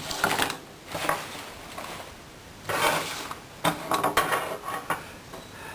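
Clattering and clinking of small hard objects being handled on a work table, in three short spells.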